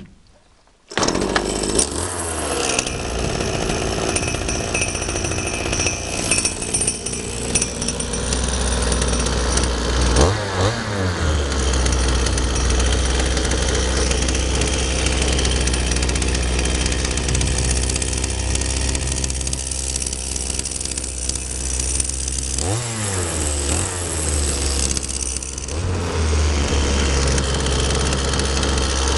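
Homelite 300 two-stroke chainsaw starting about a second in and then running steadily. Its engine speed swoops briefly twice, about ten seconds in and again a little past twenty seconds.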